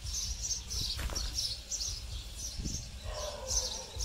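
Small birds chirping again and again in quick high notes, over a steady low rumble, with a faint knock about a second in.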